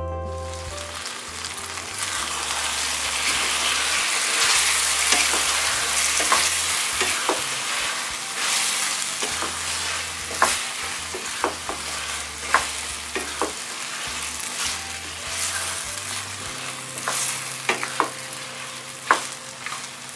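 Goat curry sizzling as it fries in oil in a stainless steel kadai, a spatula stirring through it with scattered sharp clicks and scrapes against the pan. The meat is being fried with chili paste and tomato until the tomato is cooked.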